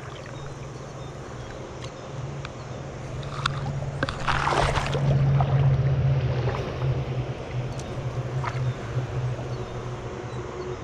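An engine hums steadily, growing louder over the first few seconds and then slowly easing off. A short rushing noise comes about four seconds in.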